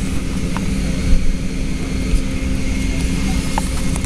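Steady low drone inside the cabin of a Boeing 757-300 parked at the gate, its air systems running, with a few light clicks as things in the seat-back pocket are handled.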